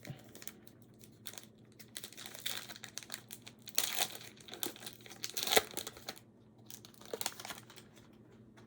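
Plastic wrapper of a trading card pack being torn open and crinkled by hand, in irregular crackling bursts that are loudest in the middle and stop about a second before the end.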